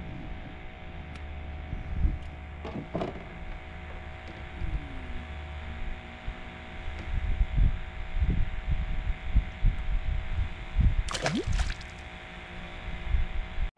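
Steady whine of a fishing kayak's electric trolling motor, with irregular low thumps and a couple of brief gliding squeaks, around 3 s in and about 11 s in.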